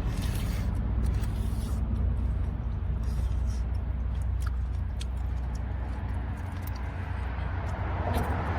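Steady low rumble of traffic on the highway bridge overhead, with scattered small clicks and taps of eating and utensils.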